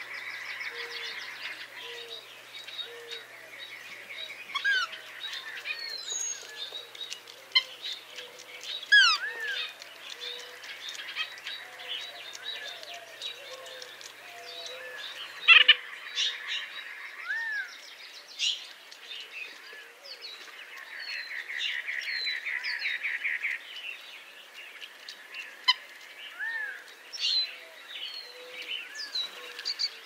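Several birds calling over one another in short chirps and whistles, among them a white-breasted nuthatch giving fast runs of evenly repeated notes, once right at the start and again about two-thirds of the way through. Short low notes repeat faintly underneath.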